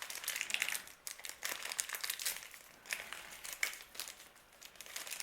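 Small plastic packet crinkling and crackling in the hands as it is worked at and pulled open with some difficulty, a rapid run of small crackles.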